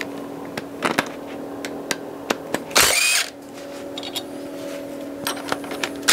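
A cordless power tool spinning bolts out of a car engine's water passage, in two short bursts, one about halfway through and one at the very end, with a few clicks of the tool and bolts between them.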